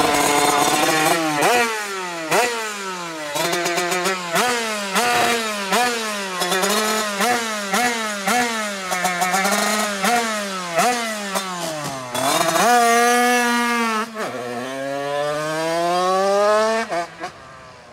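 Two-stroke HM supermotard engine, tuned with a TPR 76 cylinder kit and a Yasuni R4 exhaust, revved in quick blips over and over, each rev climbing and dropping back. Near the end it holds high, then pulls away in one long rising run that fades out.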